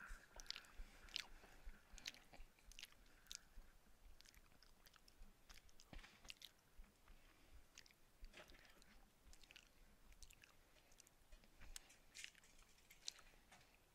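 Faint chewing close to a headset microphone: soft, irregular mouth clicks and smacks.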